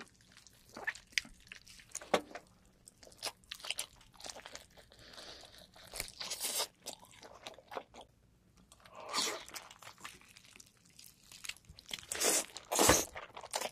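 Close-miked biting and chewing on a leg of a roasted giant squid: irregular wet clicks and crackles, with louder bursts of crunching as the chewy flesh is bitten and pulled with the teeth.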